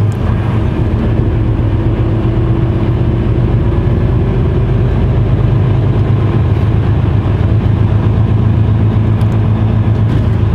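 Mercedes-Benz Actros truck's diesel engine running as the truck drives slowly, heard from inside the cab as a steady low drone.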